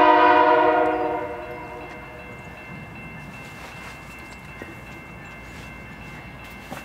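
Freight locomotive's multi-chime air horn ending a long blast, fading out about a second in, followed by the steady low rumble of the approaching train. A faint steady high ringing tone runs underneath.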